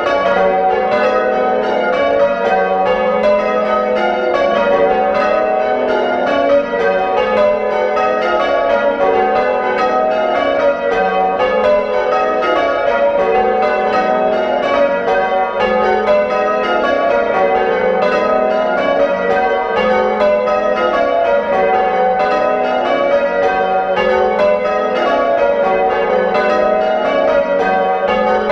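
A ring of eight church bells, hung on wheels and rung full circle by ropes from the ringing chamber, sounding in change ringing. It is a continuous stream of strikes in repeating runs that fall in pitch.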